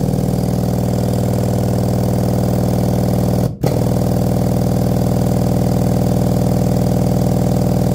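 Sundown Audio SDDN-12, a 3,500 W RMS 12-inch subwoofer, playing a 20 Hz test tone at long cone excursion: a steady, loud, low buzzing drone with many overtones. It cuts out for a split second about three and a half seconds in, as the track loops.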